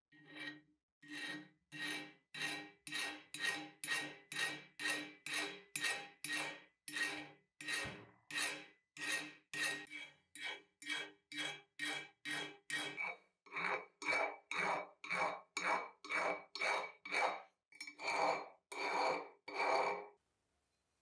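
Round hand file rasping over the bare cast iron of an antique clothes iron, in steady back-and-forth strokes about two a second, each with a faint metallic ring; the strokes stop shortly before the end.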